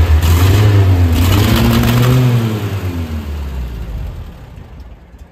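Engine of a vintage convertible revving through its twin exhaust pipes, the revs rising and falling twice, then dropping away and fading over the last couple of seconds.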